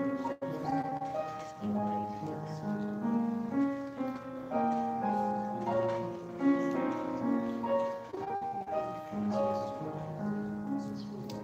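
Grand piano playing slow music, with melody notes over held chords.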